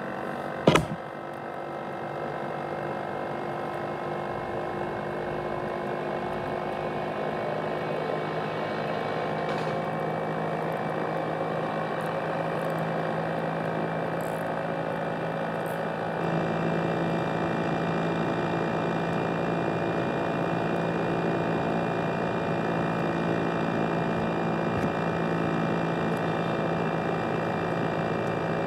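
ASUS X543UA laptop's cooling fan running hard: a steady whir with several whining tones over it, stepping up a little in loudness about halfway through. The uploader likens it to a jet engine, a sign of the laptop's fault. A sharp click sounds about a second in.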